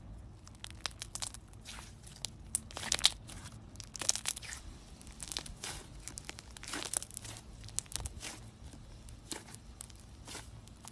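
Slime being stretched, folded and squeezed between the fingers, giving irregular crackling pops and small tearing sounds as it pulls apart. The loudest pops come about three to four seconds in.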